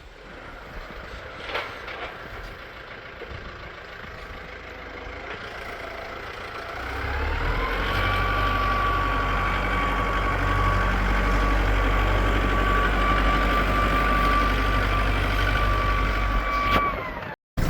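Farm tractor engine, quiet at first, then revving up about seven seconds in and held at high speed with a steady whine. It stops abruptly near the end.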